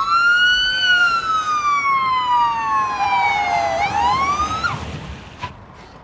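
Police car siren: one long wail that glides slowly down, then a quick rising whoop that cuts off about five seconds in.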